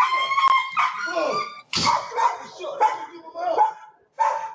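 A dog barking and whining in a run of high yelping calls, some held and some falling in pitch, with a sharp click about half a second in.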